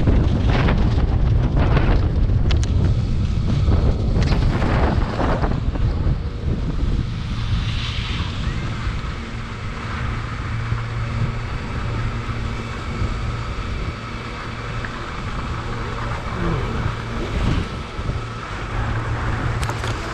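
Wind buffeting the microphone of a camera on the move over snow, as a loud low rumble. Several louder rushes come in the first six seconds, and after that it settles into a steadier rumble with a faint steady hum.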